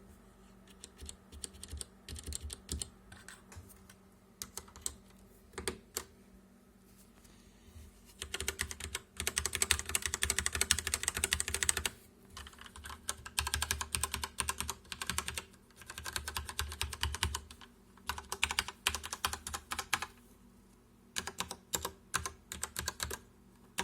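Corsair K63 mechanical keyboard with Cherry MX Red switches being typed on: scattered single keystrokes at first, then bursts of fast typing with short pauses between them.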